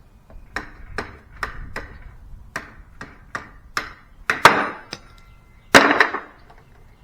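Hammer blows knocking a tight socket off a new cordless impact wrench's anvil, whose spring-loaded C-clip holds the socket too hard to pull off by hand. About a dozen sharp knocks at an uneven pace, with two much harder blows in the second half, the last of them ringing briefly.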